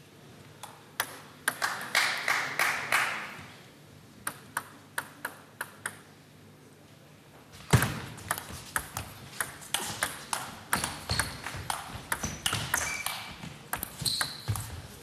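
Table tennis ball clicking off the bats and the table. A first run of hits starts about a second in, then a few lighter, evenly spaced ticks, then a longer run of quick hits from about halfway, with a few short high squeaks near the end.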